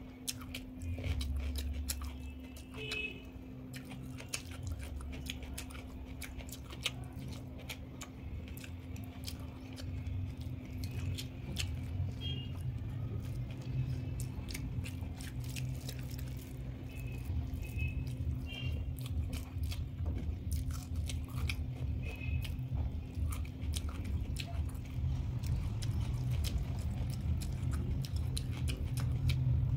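Close-miked eating sounds: chewing and biting, with many small wet mouth clicks and the odd crunch, over a steady low hum.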